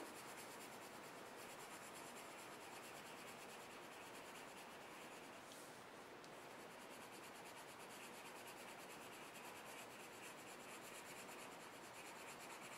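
Colorless blender pencil (wax, no pigment) rubbing over layered colored pencil on paper: a faint, steady scratching of pencil on paper.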